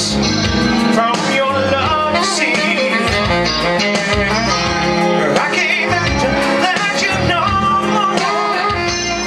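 Live band music: an electric guitar and a saxophone playing together steadily.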